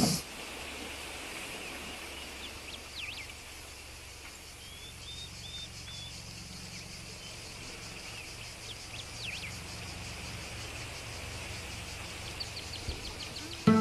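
Outdoor rural ambience: scattered short bird chirps over a faint, steady, pulsing insect chirring. A brief burst of noise sits right at the start.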